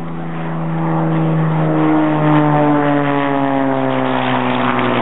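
F1 Rocket homebuilt airplane's piston engine and propeller droning as it flies low past, growing louder about a second in, with the pitch sliding steadily down as it goes by.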